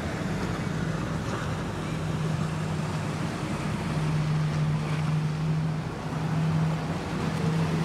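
A boat's engines running, heard as a steady low hum, with wind buffeting the microphone and water washing.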